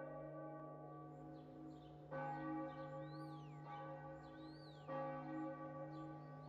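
A deep bell tolling slowly, one strike about every three seconds, each strike ringing on with many overtones over a steady low hum.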